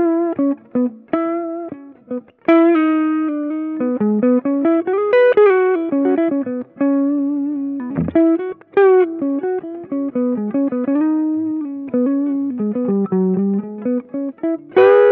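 Electric guitar played through the Hotone Ampero II Stomp's Micro Boost, a model of the MXR M133 Micro Amp, with the noise gate on. It plays a single-note melodic line with bends and vibrato, many notes cutting off abruptly, and a strummed chord near the end.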